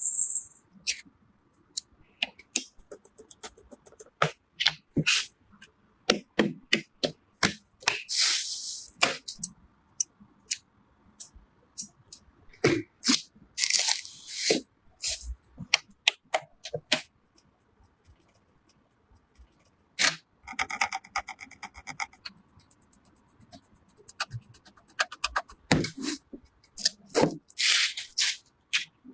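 Computer parts being handled and fitted together: a string of sharp plastic and metal clicks, snaps and knocks, with a few longer scrapes. About twenty seconds in there is a quick ratcheting run of ticks, lasting about two seconds.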